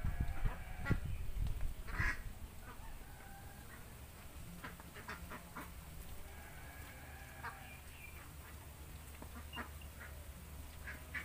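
A flock of domestic ducks quacking: many short calls overlapping through the whole stretch. Low rumbling in the first two seconds is louder than the calls.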